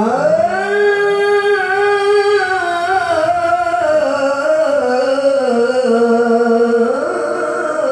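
A male qari reciting the Quran in the melodic tilawah style, unaccompanied. He sings one long unbroken phrase that slides up to a high note at the start, wavers through ornamented turns, sinks a little and climbs again near the end.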